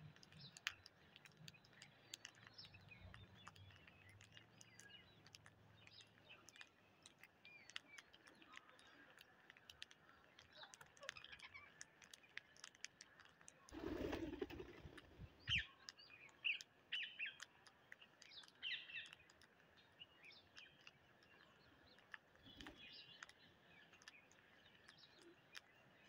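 Rose-ringed parakeets feeding on scattered rice: faint, scattered sharp clicks of beaks pecking at grain on concrete, with soft chirping calls. There is one louder burst about 14 seconds in.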